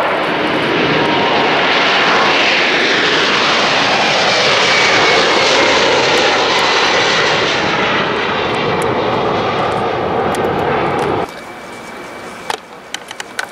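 Jet aircraft engines running loud as a plane passes low over the airport, with a faint whine that falls in pitch as it goes by. The sound cuts off abruptly about eleven seconds in, leaving a much quieter background with a few sharp clicks.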